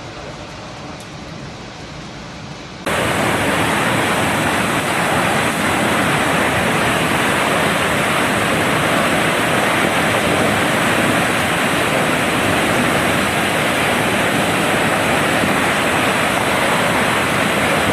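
A waterfall swollen with floodwater: a steady, loud rush of falling water that jumps suddenly much louder about three seconds in.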